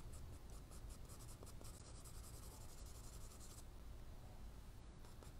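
Faint scratching of a pencil on sketchbook paper in quick short strokes, several a second: hatch marks being laid down to draw hair. The strokes soften about three and a half seconds in.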